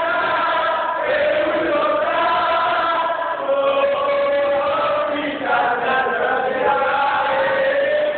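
A group of people singing together in unison, a chant-like song with long held notes that change pitch every second or two.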